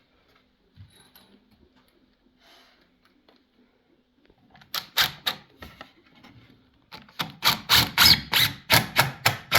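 Screws being driven into the mud kitchen's wooden panels: a few soft handling knocks, then a fast run of sharp clicks, about three to four a second, in the second half.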